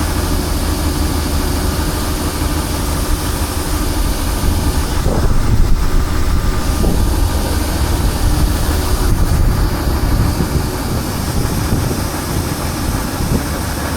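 Combine harvester engine running steadily with a heavy low hum, swelling a little louder about five seconds in.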